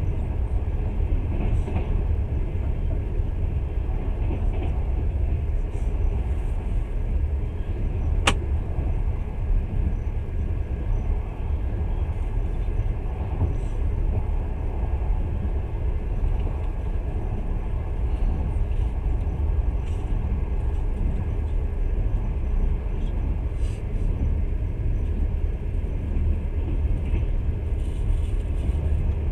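Steady low rumble of a moving passenger train's wheels on the rails, heard from inside the carriage, with one sharp click about eight seconds in.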